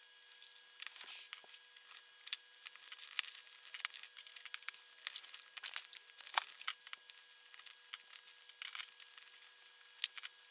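Tiny plastic nano building bricks clicking and scraping as they are pressed together by hand, in a run of short, irregular clicks and scratchy rustles, with the paper instruction sheet rustling among them.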